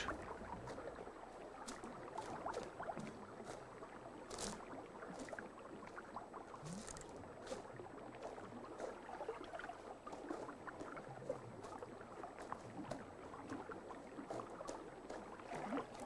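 Faint underwater water sounds, soft gurgling and sloshing with scattered light clicks and ticks, as a yapok (water opossum) swims and feels among the stones of a stream bed.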